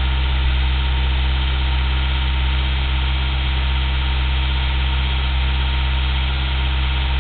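Toyota 22RE four-cylinder engine in a 1987 4Runner running steadily, with an occasional pop in the exhaust that the owner takes for a misfire.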